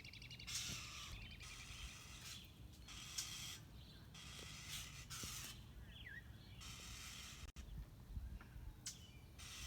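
Small birds chirping and calling again and again, high-pitched, with one falling chirp about six seconds in: mobbing calls at a hawk feeding on a squirrel.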